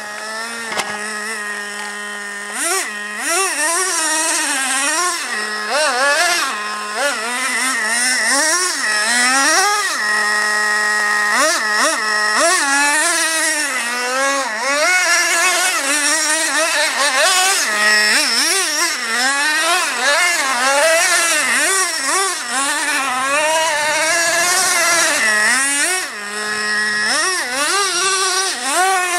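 Traxxas Revo 2.5 RC monster truck's 2.5 cc two-stroke nitro engine, revving up and down over and over as the truck is driven. It settles back to a steady idle for a second or two several times.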